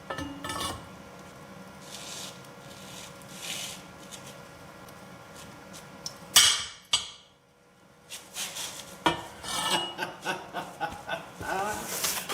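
Steel tools and scrap metal clinking and scraping while a welded-on scrap-steel lever is worked against a seized bolt. One loud sudden clang comes about six seconds in, and quick metallic clinks follow over the last few seconds.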